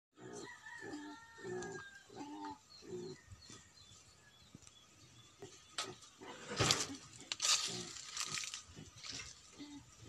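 Chickens clucking, with small birds chirping. Loud bursts of rushing noise come about six to eight seconds in.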